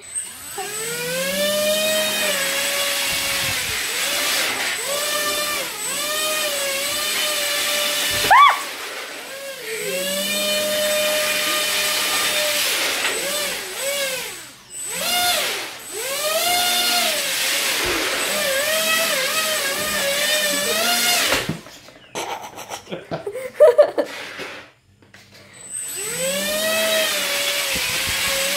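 HobbyKing Swamp Dawg RC airboat's electric motor and caged propeller whining, its pitch rising and falling again and again as the throttle is worked, with brief dips. About two-thirds of the way through the motor stops for a few seconds, with a few loud knocks, then spins up again.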